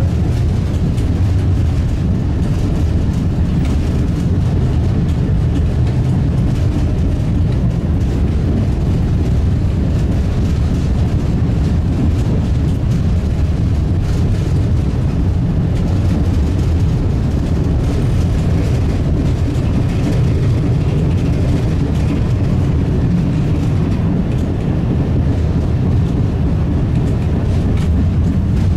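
Tram running along street track, heard from inside the car: a steady low rumble of wheels on rails and the running gear.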